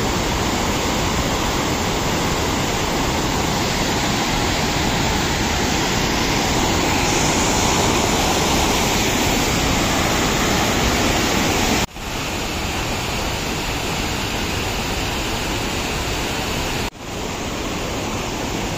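Steady, loud rush of white-water rapids and falls pouring over rocks, breaking off for an instant twice in the second half.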